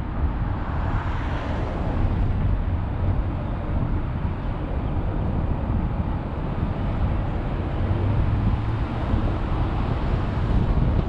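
Car driving on a highway, heard from inside the cabin: a steady low rumble of tyre and wind noise that swells briefly about a second in.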